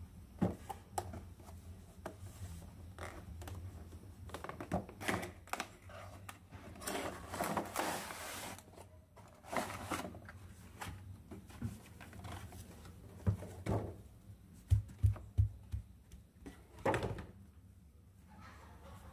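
Small plastic toy pieces and packaging handled by hand: scattered clicks and taps, with a longer rustle about seven seconds in and a quick run of four light knocks about fifteen seconds in.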